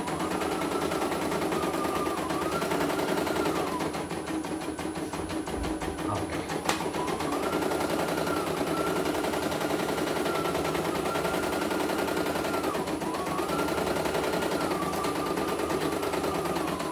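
CNY E900 computerised embroidery machine stitching at a raised speed: a fast, even needle clatter under a motor whine that rises and falls, dipping three times.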